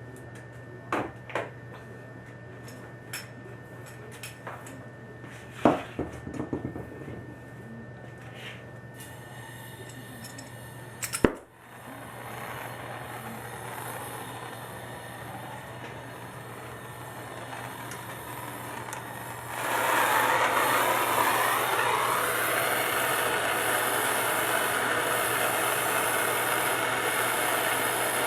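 Scattered metallic clicks and knocks of pipe and fittings being handled. Then a sharp click about a third of the way in, after which a plumber's gas torch flame hisses steadily, becoming much louder about two-thirds of the way in and holding there.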